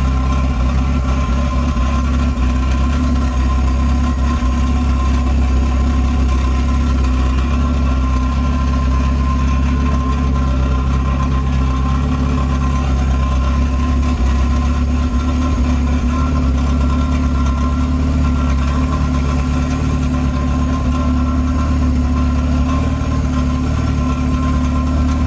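Honda Civic coupe's H2B-swapped Honda H22 four-cylinder engine running at a steady, loud idle, just brought to life after the swap. The idle is even and sounds good.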